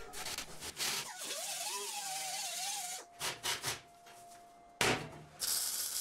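Hiss of high-temperature paint sprayed from an aerosol can in a series of spurts, one long stretch of about two seconds among them, with a faint whistling tone under it.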